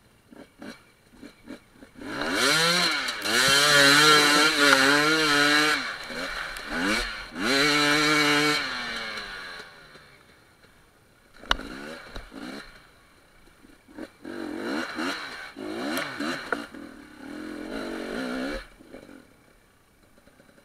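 Enduro motorcycle engine revving hard in two long bursts, its pitch wavering up and down, then dropping back. After a single sharp knock it revs again more quietly near the end.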